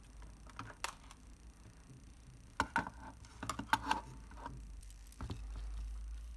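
Small clicks and taps of tiny metal camera parts being handled and fitted into a Plaubel Makina 67 camera body, one about a second in and a quick cluster in the middle, over a low steady hum.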